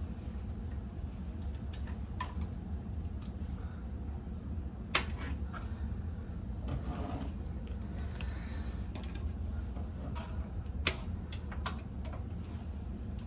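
Scattered clicks and knocks of an electrical cable being fed and worked into a breaker panel, the loudest about five seconds in and another near eleven seconds, over a steady low hum.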